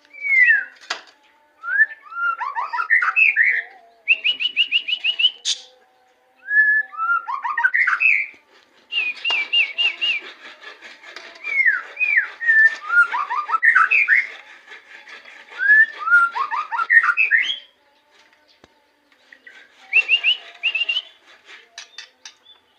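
White-rumped shama (murai batu) singing: varied whistled phrases of rising and falling notes and quick runs of repeated notes, broken by short pauses.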